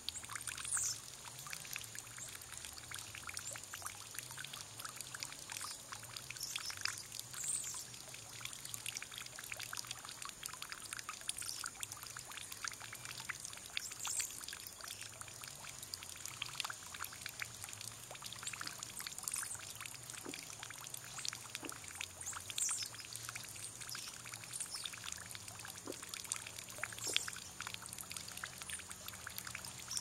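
Water pouring steadily in a thin stream into a round water basin, splashing and trickling as the basin overflows into a puddle.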